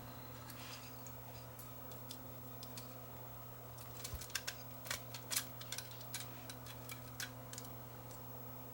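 Faint, light clicks and taps of small parts of a camcorder tape-mechanism chassis being handled, scattered from about four seconds in, over a steady low electrical hum.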